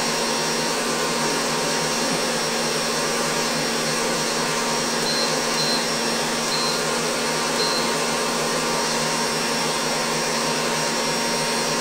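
Stand mixer running steadily, whipping albumin-based egg whites in a steel bowl: an even motor whir with the whisk beating.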